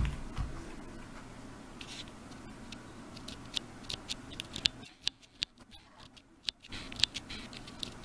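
Hands handling a paracord bracelet and its plastic side-release buckles as it comes off a wooden jig: a knock at the start, then scattered small clicks, scratches and rustles of cord and plastic.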